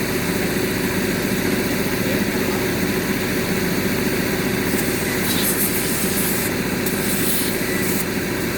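A machine running steadily with a low, even drone, with two short bursts of hissing about five and seven seconds in.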